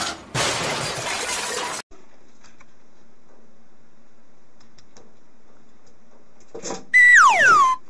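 A loud cartoon-style falling whistle near the end: a high held tone that slides down about an octave in under a second. Before it comes a short burst of hiss-like noise, then a faint steady hum with a few soft clicks.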